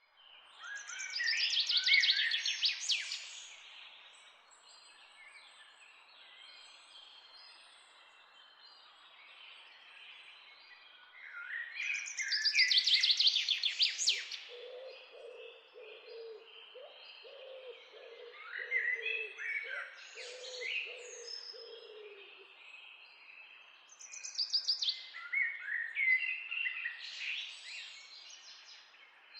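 Wild birds singing: a loud song of fast trilling, up-and-down notes comes three times, about every eleven seconds, with softer calls in between. Through the middle a second bird gives a low call repeated several times for about eight seconds, over a faint steady hiss.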